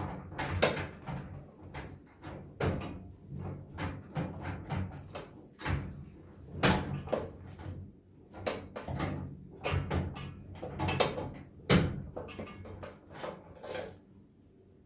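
A key being jiggled and forced in a drilled-out steel filing cabinet lock, with irregular metallic clicks, knocks and rattles from the lock and cabinet. The lock is still not turning.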